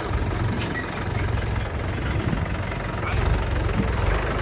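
Heavy diesel engine of a backhoe loader or farm tractor running steadily with a low rumble, and a brief click about three seconds in.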